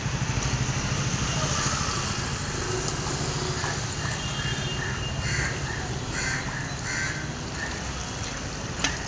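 Floodwater flowing through a waterlogged street with a steady low rumble, and a bird calling in a string of short calls around the middle.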